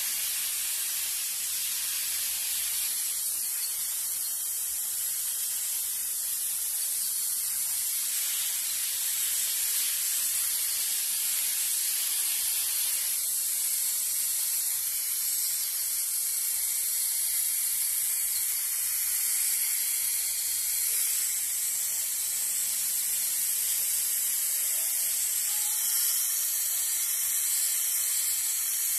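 Garden hose spray nozzle spraying a fine mist of water over plants: a steady hiss.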